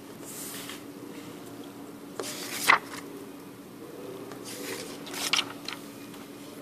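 Crisp paper banknotes rustling as they are turned over and handled on a tabletop: three short bouts of rustling, the sharpest about two and a half seconds in.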